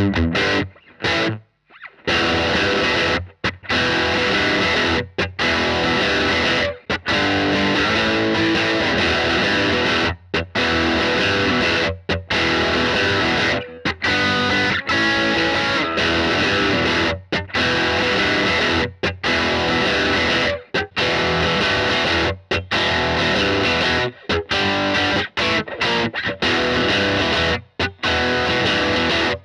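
Fender Mexican Telecaster electric guitar played through distortion: a riff broken by short, sudden stops every second or two.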